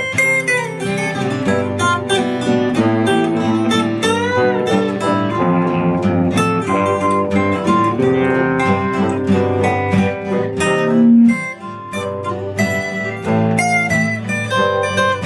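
Live band music, an instrumental passage led by guitar, with plucked notes and bending, sliding pitches.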